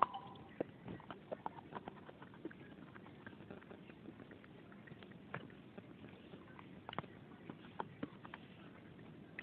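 Crunching and chewing of dry red clay lumps being bitten, a stream of irregular crisp cracks, the sharpest at the very start.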